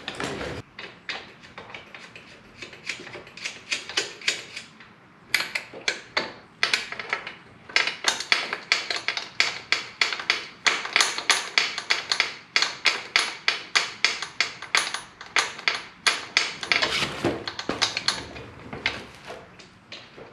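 Ratchet wrench clicking in runs of rapid clicks with short pauses, as it backs off the rear chain adjuster screws on a motorcycle swingarm to let the wheel slide forward and slacken the chain.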